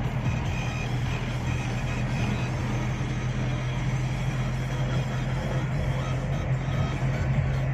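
Steady drone of a moving car heard from inside the cabin: a low engine hum over road and tyre noise.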